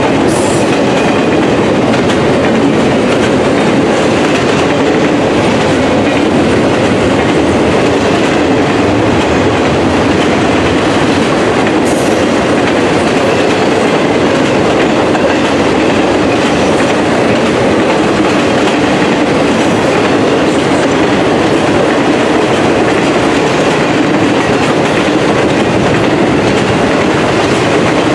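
Freight train of intermodal cars (container well cars and trailer-carrying flatcars) rolling past close by, its steel wheels on the rails making a loud, steady, unbroken rumble.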